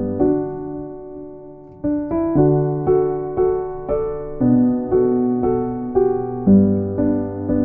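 Background piano music: a slow, gentle melody. A chord rings and fades for over a second near the start, then notes are struck about twice a second.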